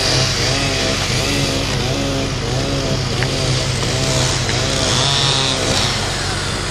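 An engine running steadily at a building site, with a wavering tone that rises and falls over and over and settles near the end.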